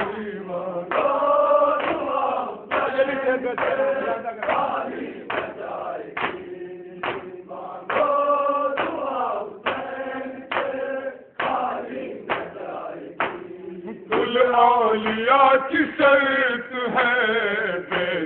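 Men chanting an Urdu noha, a mourning lament for the martyrs of Karbala, in a steady, regular rhythm.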